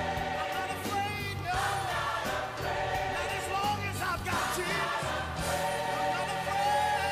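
Live gospel music: a male soloist sings a gliding lead line over a large choir and instrumental accompaniment with a steady bass.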